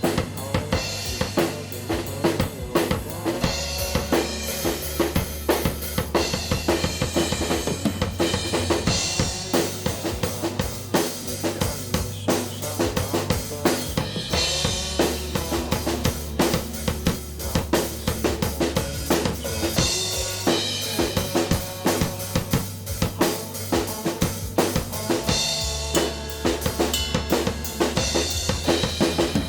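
Band music played on a drum kit with a steady, driving beat over sustained bass notes and other instruments.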